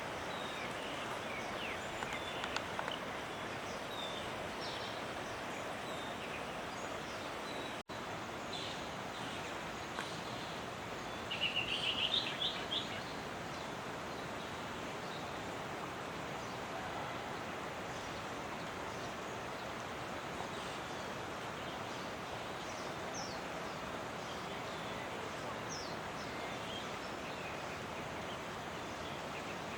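Small birds chirping sporadically over a steady outdoor background hiss, with a quick run of rapid chirps about twelve seconds in.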